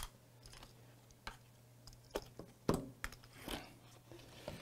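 A handful of irregular light plastic clicks and knocks as a microwave inverter circuit board in its plastic protective case is picked up and handled, with a brief rustle about three and a half seconds in. A faint steady low hum runs underneath.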